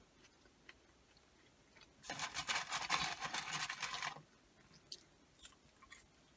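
Quiet mouth sounds of chewing a burger, broken by a loud crinkling of the burger's paper wrapper for about two seconds in the middle.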